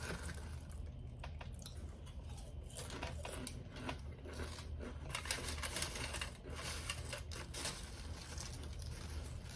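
A person chewing food close to the microphone, with soft, irregular mouth clicks over a low steady hum.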